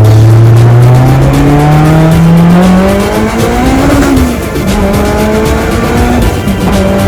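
Car engine accelerating hard: its pitch rises steadily for about four seconds, drops sharply at a gear change, then holds nearly steady. Music plays under it.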